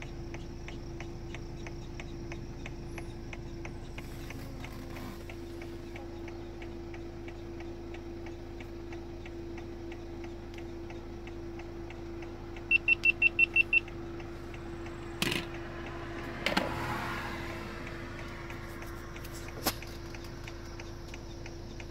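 Inside an idling vehicle: a steady hum with an indicator flasher ticking about two or three times a second. About 13 s in, the vehicle's warning chime gives a quick run of eight high beeps. A few sharp knocks follow later, two of them close together.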